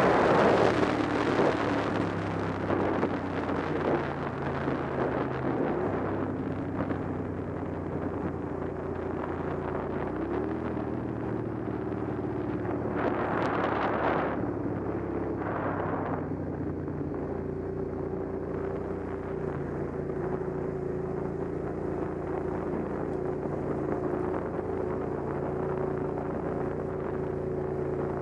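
Motorcycle engine running at riding speed, its note stepping up and down a few times, under wind rushing over the microphone that is heaviest at the start and gusts briefly about halfway through.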